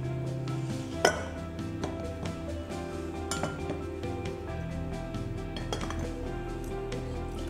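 Ceramic and glass tableware clinking as it is handled and set down on the counter, a few sharp clinks with the loudest about a second in, over background music.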